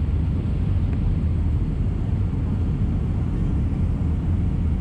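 Steady low rumble of an Airbus A319 airliner heard from inside the cabin: engine and airflow noise, with no rise, fall or sudden events.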